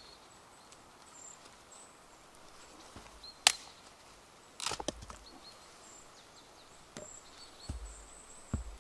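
Knife cutting vegetables on a board: scattered sharp knocks, the loudest about three and a half seconds in, with a quick cluster of them a second later and more near the end.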